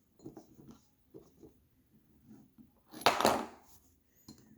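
Small clicks and rattles of a metal puzzle lock and its keys being handled, with one louder, brief noisy burst about three seconds in.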